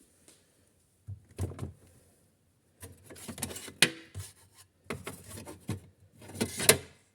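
Irregular bursts of rustling and knocking, as of things being handled or moved about, in four spells, with a sharp click about four seconds in and another near the end.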